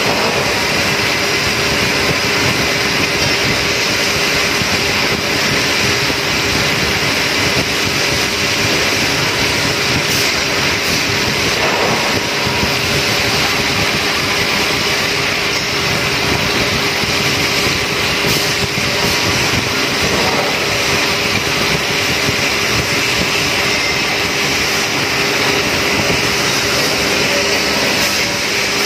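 Bridgeport CNC drilling machine running a drilling cycle under flood coolant: a steady machine hum with a strong hiss of coolant spraying and splashing over the work, unchanging throughout.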